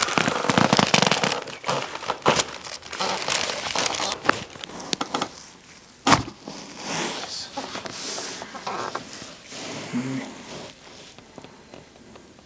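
Rustling and crinkling as the patient is positioned for a chiropractic neck adjustment, then one sharp crack about six seconds in: the neck joint popping as it is adjusted.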